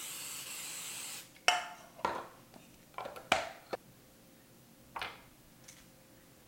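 Aerosol cooking spray hissing steadily from the can for about a second as a metal cake pan is greased. Then about half a dozen sharp clinks and knocks as the metal pan and utensils are set down and handled on a stone counter.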